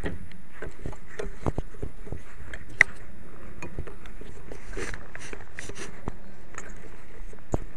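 Handling noise picked up by a camera mounted on an FPV quadcopter as it is carried by hand: irregular knocks, rubs and scrapes against hands and clothing, with one sharper click about three seconds in, over a steady hiss. The motors are not running.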